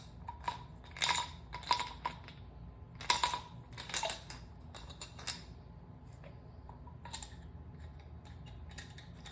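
Plastic and metal clicks and knocks from a hammer drill's side handle and its bolt being handled and fitted, in irregular clusters that thin out and grow fainter after about six seconds.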